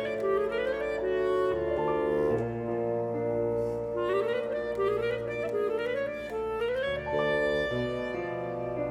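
Classical music: a melody with quick rising runs of notes over held lower notes that change every second or so.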